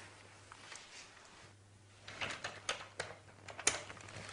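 A run of light plastic clicks starting about two seconds in, from a corded desk telephone being handled and its buttons pressed to dial.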